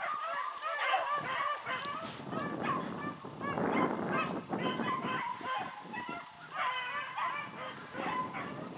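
A pack of beagles baying while running a rabbit's trail: many overlapping calls that rise and fall, going on without a break.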